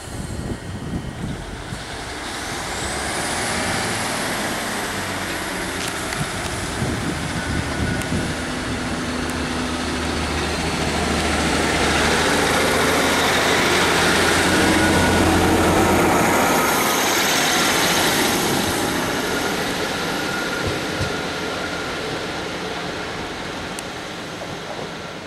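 British Rail Class 150 Sprinter diesel multiple unit pulling away from a station, its underfloor Cummins diesel engines powering up with a rising whine about two seconds in. The sound builds to its loudest as the carriages pass close by midway, then fades as the train draws away.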